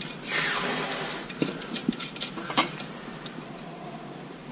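A short rustle, then a few light metallic clicks and ticks from hand-turning set screws on a steel three-point quick hitch until they touch the lift arm.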